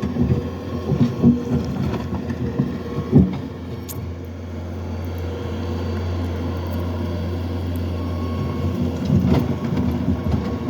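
Farm machinery engine running steadily with a low hum, swelling a little in the middle.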